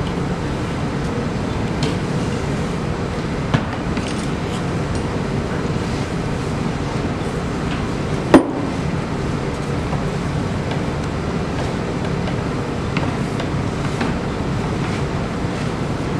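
Steady low room rumble with a few light knocks of a hollow PVC pipe being rolled over a clay slab and handled on the board; one sharp, ringing knock about eight seconds in.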